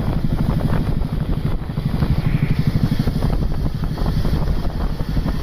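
Heavy vehicle engine rumbling loudly and steadily, most likely a bus's diesel engine close by.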